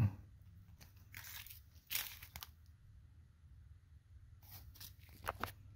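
Faint crinkling and rustling from handling the new clutch pedal spring, in a few short bursts about a second in, around two seconds in, and again near the end.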